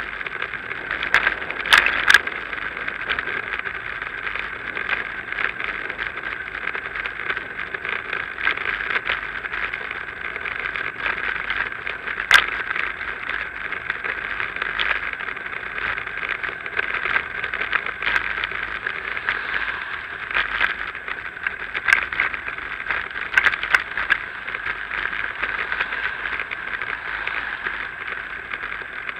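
Steady riding noise from a bicycle rolling over a paved path, broken by sharp clicks and knocks as bumps jolt the bike and its camera mount. There is a cluster of these about two seconds in, a single loud one around the middle, and a few more late on.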